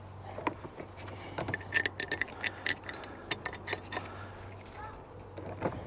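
Small metal parts clicking and clinking as they are handled and fitted during reassembly of a hydraulic drive motor: a quick, uneven run of light clicks in the middle, a few more near the end.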